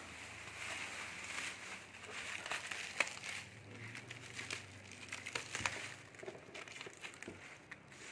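Plastic shrink wrap crinkling and rustling as it is pulled off a flight case, with a few sharp clicks as hands work over the case's metal edges and corner fittings, the clearest about three seconds in.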